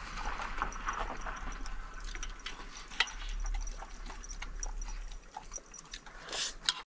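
A dog eating meat and tripe bites from a bowl: irregular small crunches and clicks of teeth against the food and bowl, with one louder click about three seconds in. The sound cuts off suddenly near the end.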